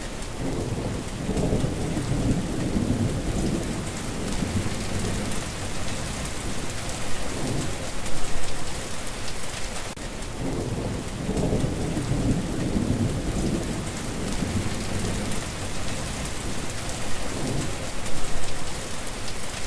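Steady heavy rain hissing, with low rolling thunder rumbling twice, about a second in and again about eleven seconds in.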